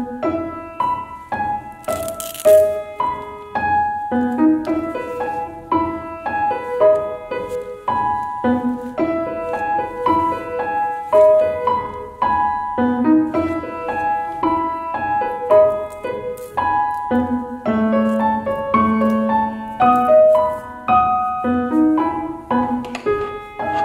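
Background piano music: a light melody of short, evenly paced notes.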